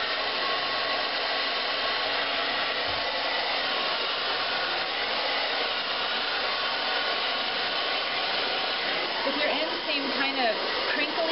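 Handheld hair dryer blowing steadily into hair wound on a round brush.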